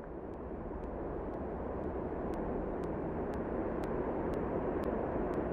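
A rushing roar swells in and keeps building, with a soft tick about twice a second over it.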